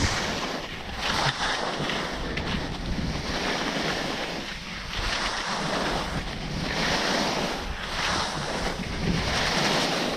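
Skis hissing and scraping over sun-cupped spring snow, the hiss swelling and fading in surges every second or two, with wind rushing over the microphone.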